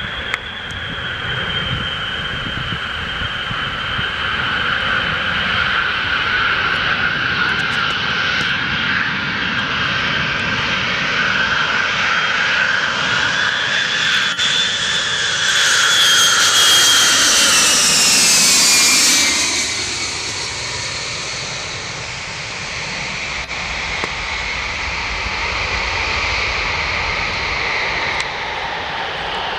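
Boeing 707 four-engine jet flying low on approach, a steady engine whine with high thin tones. About fifteen seconds in it grows loudest and the whine falls in pitch as the jet passes close by, then settles back to a steadier drone.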